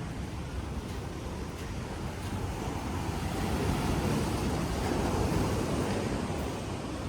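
Ocean surf washing on the shore, swelling a little about halfway through, with a low rumble of wind on the microphone.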